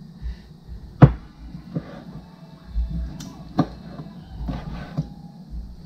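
Kitchen knife cutting tough turkey kidneys and knocking down on a plastic cutting board: several sharp knocks, the loudest about a second in.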